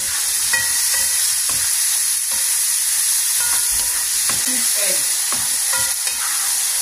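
Sausage slices and chopped tomatoes sizzling in a hot frying pan, stirred with a wooden spatula that scrapes and taps irregularly against the pan.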